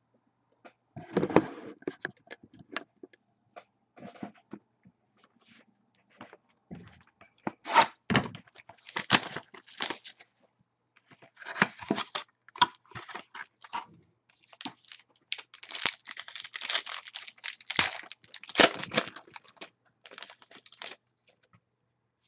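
A cardboard trading-card box being opened by hand and the cards inside pulled out: scraping, tearing and rustling of cardboard and card stock in irregular bursts, with small clicks and knocks.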